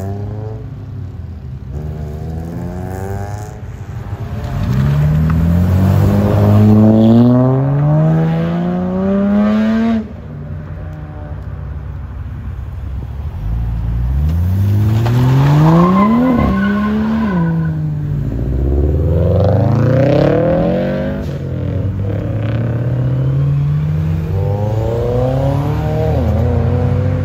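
Several modified cars accelerating away one after another, their engines revving hard, each climbing steeply in pitch as it pulls away, then dropping back or fading.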